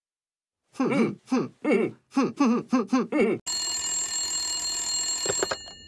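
Telephone ringing: first a run of about eight quick, warbling rings, then an old rotary telephone's metal bell ringing continuously for about two seconds before fading away.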